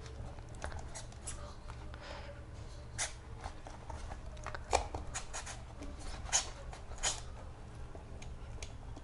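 A snap-off utility knife blade sawing through the rubber outsole and bead-type Boost foam midsole of an Adidas running shoe, making irregular short crackles and scrapes with each stroke, over a steady low hum.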